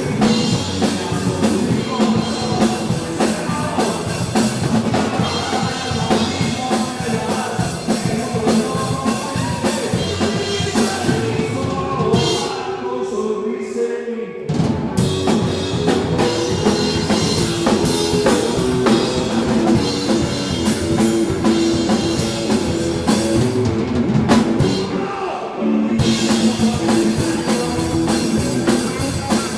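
A rock band playing live, with the drum kit up front: kick drum, snare and cymbals driving the song. The drums drop back twice for a moment, near the middle and a few seconds before the end.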